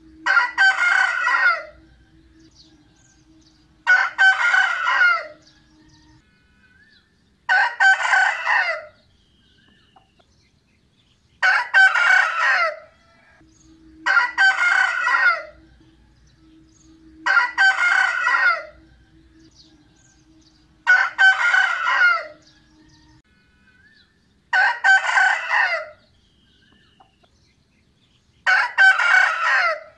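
Rooster crowing loudly, nine full cock-a-doodle-doo crows each about a second and a half long, repeating every three to four seconds.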